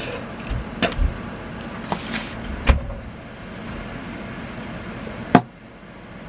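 Steady background hum with a few knocks and thumps of things handled on a desk, the sharpest about five seconds in.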